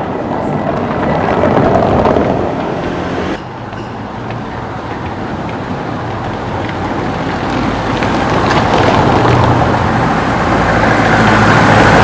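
Cars passing close on a cobblestone street, their tyres rumbling over the cobbles. The first car is loudest about two seconds in, and the sound drops off abruptly a little after three seconds. Another car then approaches with a low engine hum and is loudest near the end.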